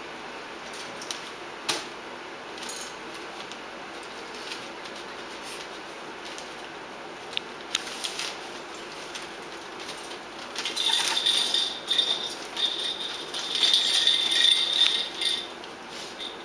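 Jack Russell terrier nosing and tugging at newspaper under a wire bird cage: scattered light clicks and taps at first, then, from about two-thirds of the way in, several seconds of louder paper rustling and rattling with a thin, high ringing through it.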